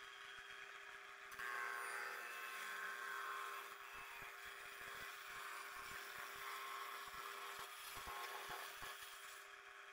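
Table saw set into a wooden bench, its circular blade running with a steady hum while ripping a strip off a wooden board; the cutting gets louder about a second and a half in.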